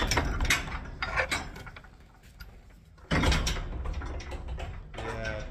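Metal livestock pen gate rattling and its hook latch clanking, in two bouts of clatter: one right at the start and another about three seconds in.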